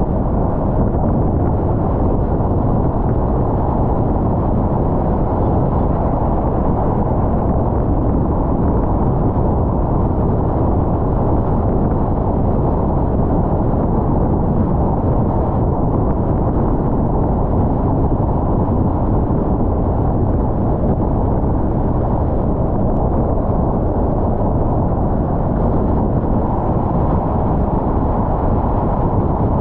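A car driving at steady speed: a continuous low rumble of tyre and engine noise that does not change.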